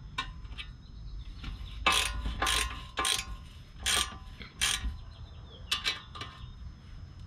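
Hand ratchet clicking in short, uneven bursts as the front suspension nuts are run down snug by hand, not yet torqued.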